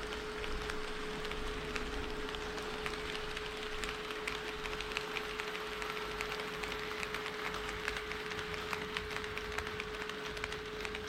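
HO-scale model train running on KATO Unitrack: a steady motor hum with many small irregular clicks of the wheels over the rails and joints.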